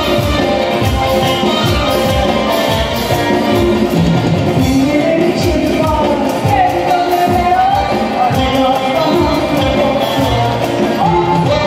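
Live dance music from a keyboard with a steady beat.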